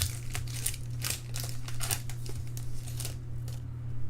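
Foil trading-card pack wrappers crinkling and tearing as packs are ripped open by hand, in irregular crackles that die away about three and a half seconds in. A steady low hum runs underneath.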